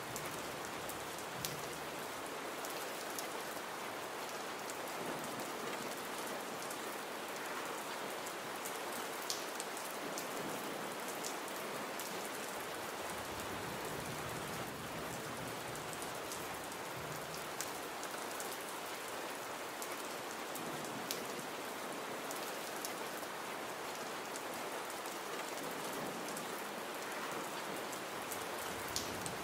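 Gentle rain falling steadily: an even hiss of rainfall, with now and then a single drop ticking sharply above it.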